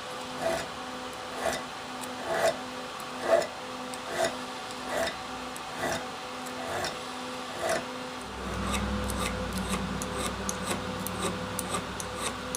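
Moore Brothers auger bit file rasping across the steel of an Irwin auger bit in short strokes, about one a second, removing burrs from the cutting edge. About eight seconds in, a low steady hum comes in and the strokes turn quicker and lighter.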